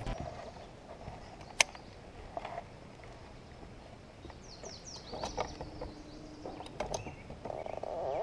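Scattered clicks and knocks, the sharpest about a second and a half in, with a brief run of small bird chirps about halfway through.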